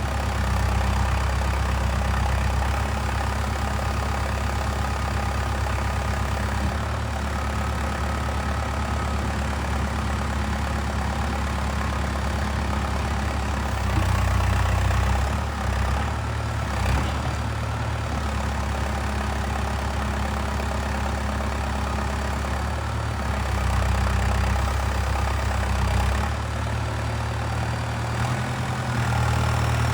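Diesel engine of a Valtra 815 backhoe loader running steadily. Its note swells briefly a few times, around the middle and near the end.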